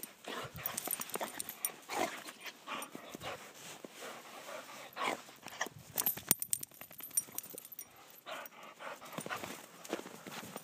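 A black dog making short excited whines as it jumps up and bounds about, with many sharp clicks and scuffles.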